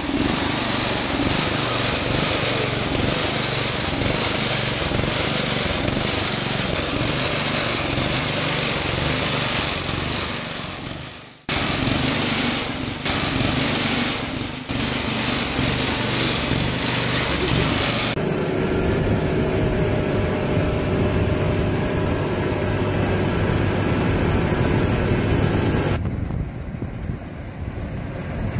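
Small engine of a riding garden tractor running as it is driven, with a brief drop-out and cut about eleven seconds in. In the later part, other machine recordings take over with a steadier engine tone, ending on a large tracked farm tractor's engine.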